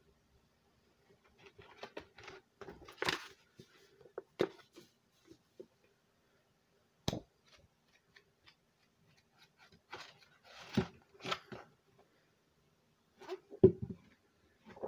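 Paperback book being handled and its pages flipped: scattered paper rustles and small clicks, with a louder thump near the end.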